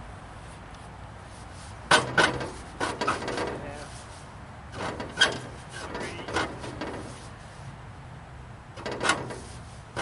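Used bandsaw blade being fitted onto a portable sawmill's blade wheels and tensioned by hand: five or so short bursts of metal scraping and rubbing, some starting with a sharp click.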